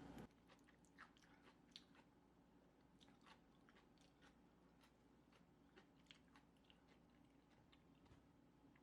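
Faint chewing and mouth clicks of someone eating Chapagetti noodles, a scatter of soft short ticks over low room noise.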